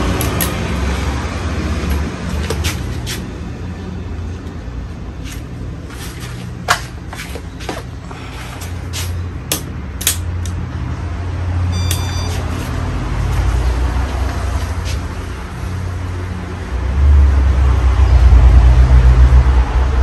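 52-inch Casablanca California Zephyr ceiling fan running steadily, a low motor hum under the rush of its turning blades. There are a few light clicks, and a louder low rumble in the last three seconds.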